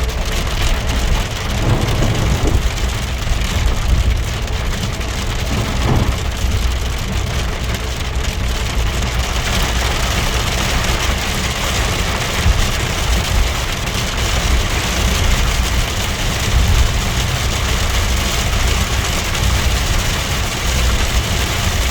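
Heavy rain pouring steadily, with a constant low rumble underneath.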